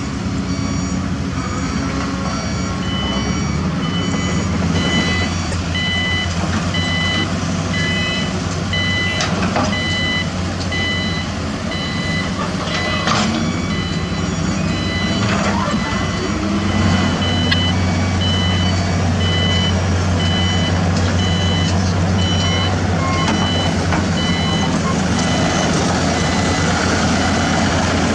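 Heavy construction machine's reversing alarm beeping steadily, about one and a half beeps a second, over the steady low running of heavy diesel engines, with a few sharp metallic clanks in the middle.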